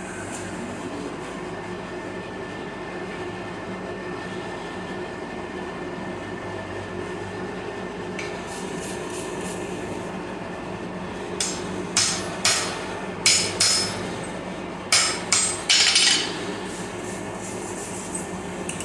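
Hammer blows on a bar of spring steel on an anvil, straightening it: about nine sharp strikes with short ringing tails in two quick groups in the second half, over a steady hum from the lit forge.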